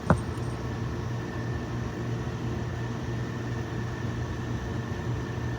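Steady mechanical hum and hiss with a faint high whine, like a running fan or air conditioner, with one short knock just after the start.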